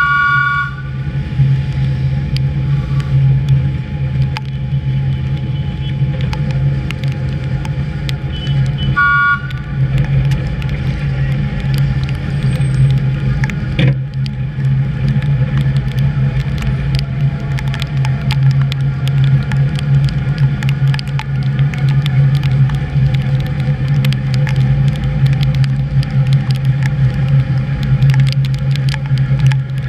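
HÉV suburban electric train running at speed, heard from the front of the train: a steady low hum and rumble from the motors and wheels, with many scattered clicks. A high steady tone cuts off under a second in, and a short one sounds again about nine seconds in.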